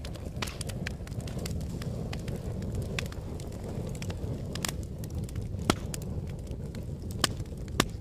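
Wood fire crackling in a fireplace: a steady low rush of burning with frequent irregular pops and snaps, a few louder pops in the second half.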